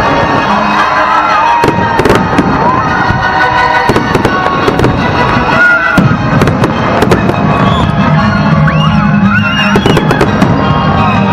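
Aerial fireworks display: many sharp bangs of shells bursting, one after another, with music playing underneath.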